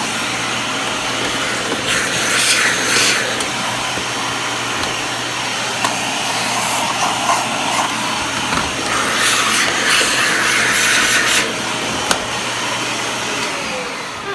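Vacuum cleaner running steadily with a low hum. Twice it turns louder and hissier for a few seconds.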